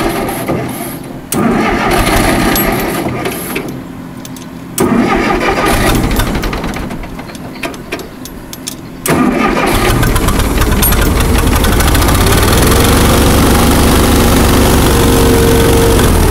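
Allis-Chalmers One-Seventy tractor's gasoline engine being started. It fires and fades away twice, then catches about nine seconds in and keeps running steadily. The engine stalls once hot, which the owner thinks is a fuel problem in the carburetor.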